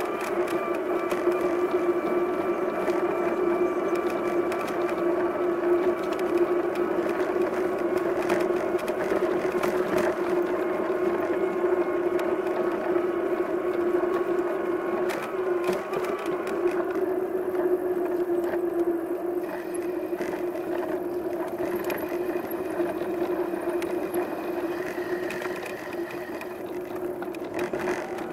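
A steady mechanical whine from a ride in motion, holding one pitch with overtones above it, with scattered light clicks and rattles over it. It eases off slightly near the end.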